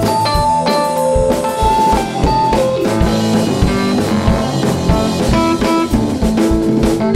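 Fender Rhodes electric piano and a drum kit playing an instrumental break in a blues song, with a steady drum beat under the electric piano's melodic lines.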